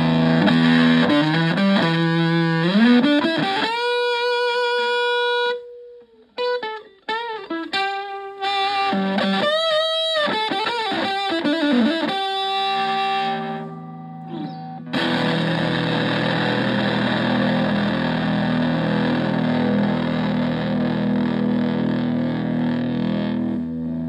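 Fender Stratocaster played through a Vox Tone Bender-style fuzz pedal into a Twin Reverb-style amp. It opens with a slide up the neck into a held note with vibrato, then a run of bent, wavering lead notes with short breaks, and from a little past halfway a fuzzy, gritty chord rings out for about eight seconds.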